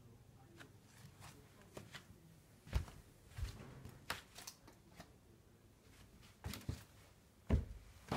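Scattered, irregular steps and scuffs on a wooden floor: light taps with a few heavier thumps, the loudest about three seconds in and near the end.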